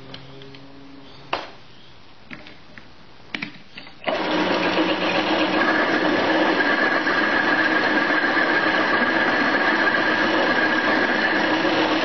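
A few sharp clicks as the lathe's levers are set. About four seconds in, the small bench lathe starts and runs steadily with a high whine, turning a carbide slot mill in its chuck.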